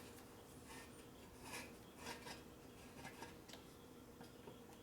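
Near silence with a few faint scattered clicks and light rubbing, the sound of metal parts being handled, the largest about one and a half and two seconds in.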